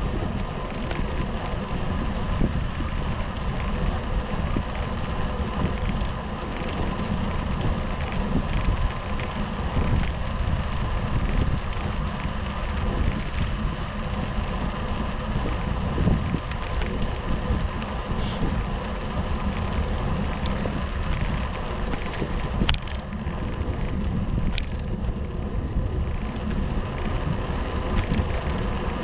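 Wind buffeting the microphone of a camera on a moving bike, over a steady rough hiss of tyres rolling on worn tarmac. Two sharp clicks come about three quarters of the way through.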